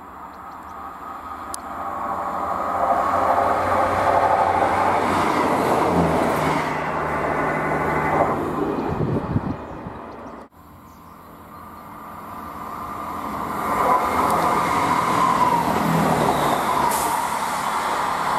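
Class 158 diesel multiple units running along the line, one after the other: the first train's engine and wheel rumble builds to a loud pass and cuts off suddenly about ten seconds in. A second unit then comes in, growing louder and passing close by near the end.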